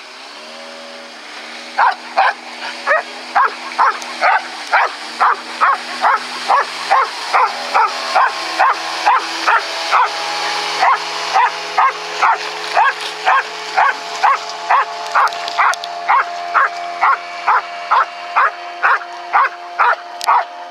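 A dog barking over and over at an even pace, about twice a second. Under the barking are a steady hum and a rushing noise that swell around the middle, which fits the outboard-driven inflatable boat and its spray passing close by.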